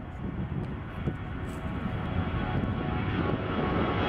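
Airbus A340-300's four CFM56 turbofan engines at takeoff thrust as the airliner lifts off and climbs. A deep rumble grows steadily louder, with a rising whine and hiss coming in near the end.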